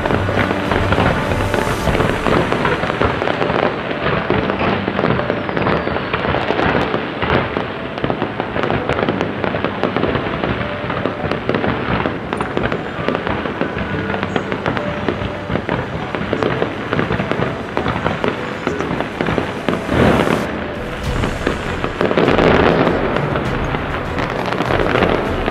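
Fireworks display: a dense, continuous volley of bangs and crackling, with bigger bursts near the end.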